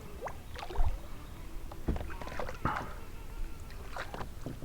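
Scattered knocks, clicks and rattles of gear and handling in a fishing kayak, with a couple of dull thumps against the hull about one and two seconds in, as a freshly caught fish is dealt with.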